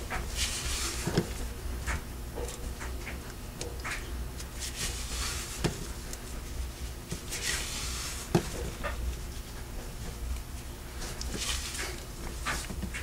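Hands working a 3/8-inch Amsteel Blue 12-strand Dyneema hollow-braid rope, bunching the braided cover down over the buried tail: repeated swishing rustles of the synthetic braid sliding through the grip, with three short knocks, over a low steady hum.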